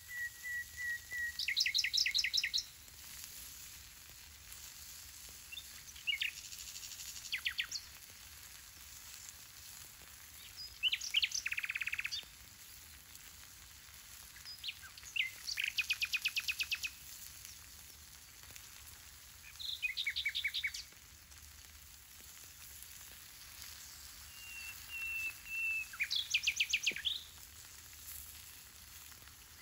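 A songbird singing short, rapid trills about every four to five seconds, some opening with a brief whistle. Under the song, a faint steady sizzle of fish, potato and onion slices cooking on a hot stone slab over embers.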